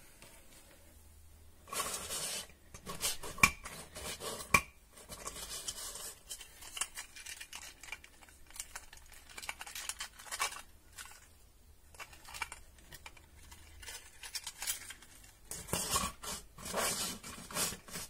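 Hard plastic clicking and clattering of a 3D-printed articulated dragon toy as it is handled and set down on the table, in scattered bursts. Two sharp knocks about a second apart, roughly three and a half seconds in, are the loudest sounds.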